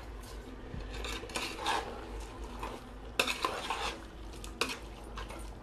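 Steel slotted spoon stirring and scraping a thick chicken-and-masala mixture in an aluminium pressure cooker, with irregular clinks of the spoon against the pot's metal walls.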